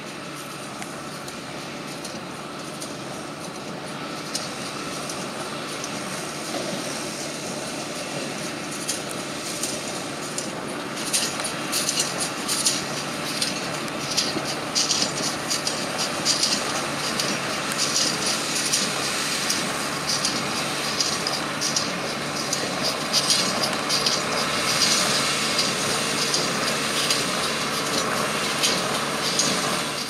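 New Holland T5060 tractor engine running under load while pulling a Massey Ferguson 124 small square baler, with the baler's mechanism clattering and clicking as it picks up and packs straw. The sound grows louder as the outfit draws nearer, and the clatter becomes denser and sharper from about ten seconds in.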